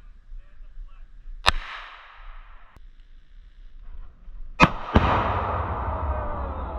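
Two gunshots about three seconds apart. A split second after the second shot, a Tannerite target detonates in a loud blast that rumbles on.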